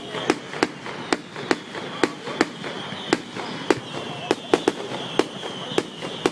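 Firecracker-type fireworks going off in a run of sharp, irregularly spaced pops, about two a second, over a steady high hiss.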